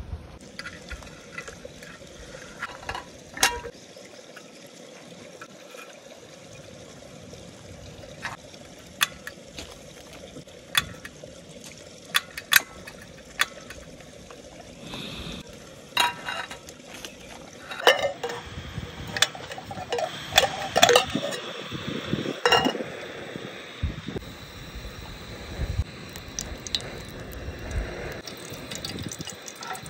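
Scattered clicks and clinks as a small portable butane camping stove, its gas canister and a metal camping pot are handled and set up, with water poured into the pot.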